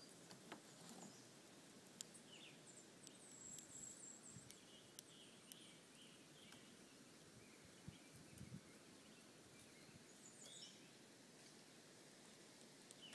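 Near silence: faint outdoor ambience with a few soft clicks.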